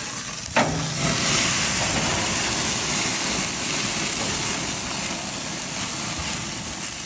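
Beef burger patties sizzling on a gas grill, a steady hiss as fat from the meat drips into the flames and makes them flare up. A single sharp knock about half a second in.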